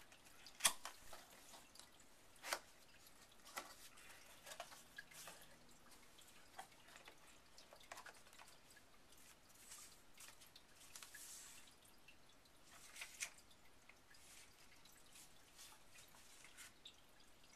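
Cardboard box being opened by hand: a few sharp clicks and taps as the lid and flaps come free, then faint rustling of paper leaflets being handled.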